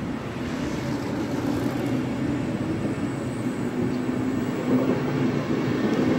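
Locomotive-hauled Flixtrain passenger coaches rolling past as the train pulls out: a steady rumble of wheels on rails that grows a little louder toward the end.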